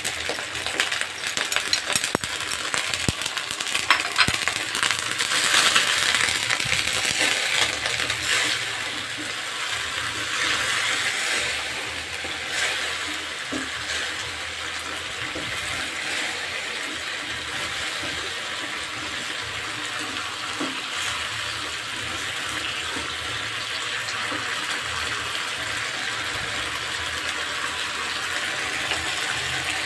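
Green beans stir-frying in a wok with a steady sizzle, a spatula clinking and scraping against the wok over the first dozen seconds or so.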